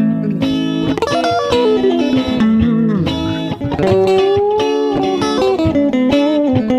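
ESP LTD EC-256 electric guitar played on a clean tone, picking a melodic single-note line. It slides down in pitch in the first half, and a little before the middle a note is bent up and held with vibrato.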